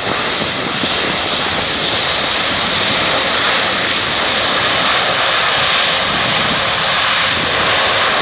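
Boeing 777-200ER's twin turbofan engines running loud and steady on reverse thrust during the landing rollout, a dense hissing rush with no distinct tone.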